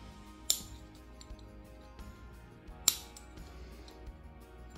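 Background music with two sharp, short clicks, one near the start and one just past halfway, from a steel pick tool working the old piston seals out of a motorcycle front brake caliper.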